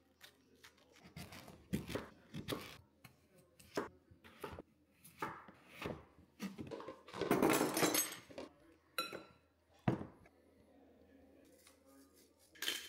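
A chef's knife chopping potatoes and butternut pumpkin on a wooden chopping board: irregular sharp knocks of the blade striking the board, with one longer, louder stretch of noise about seven seconds in.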